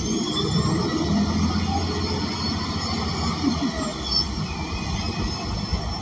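Interior noise of a transit bus under way: the rear-mounted Cummins Westport L9N natural-gas engine gives a steady low drone over road rumble, heard from inside the cabin.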